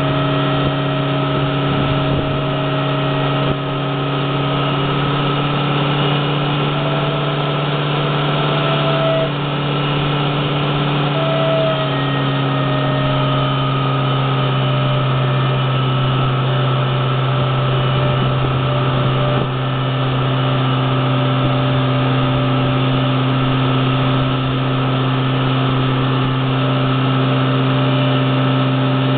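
Steady hum of a running engine or motor, holding one pitch, with small shifts in pitch about twelve seconds in and again a few seconds later.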